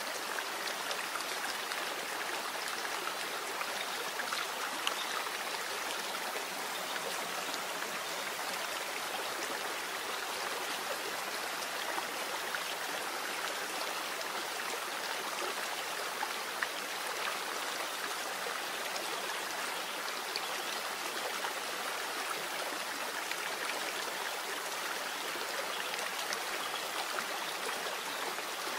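Steady, even rush of running water like a flowing stream, laid as a masking layer over sped-up subliminal audio.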